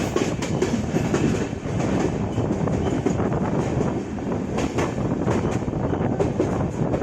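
LHB passenger coach running along the track, heard from inside: a steady rumble of wheels on rail with frequent clicks and rattles.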